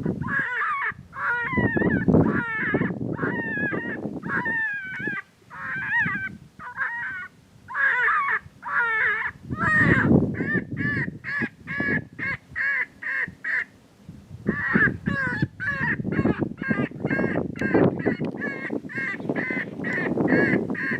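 A chorus of coyote yips and wavering howls, many short high calls tumbling over one another. A low rumble of noise runs underneath.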